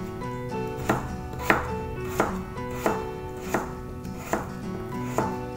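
Kitchen knife chopping a peeled potato into cubes on a plastic cutting board: about seven sharp knocks of the blade against the board, roughly one every 0.7 seconds.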